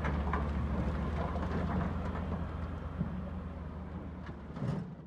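Steady diesel engine hum from the excavator and the idling dump truck, with rock and shale clattering and knocking into the truck's steel dump bed as the excavator bucket unloads. The sound fades away near the end.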